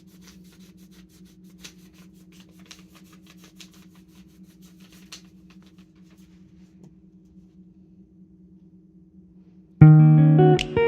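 A faint steady low hum with scattered light clicks. Near the end, loud plucked guitar music starts abruptly.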